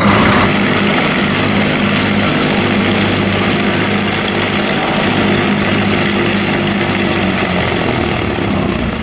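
A propeller aircraft's piston engine running steadily and loud, with a constant low hum.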